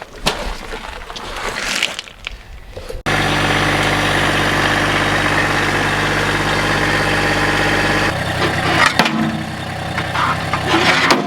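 Engine idling steadily. It cuts in abruptly about three seconds in, after some irregular working noise, and is quieter from about eight seconds in, with a few sharp knocks.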